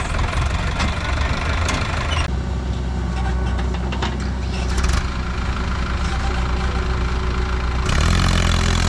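Diesel tractor engine running steadily, getting louder about eight seconds in.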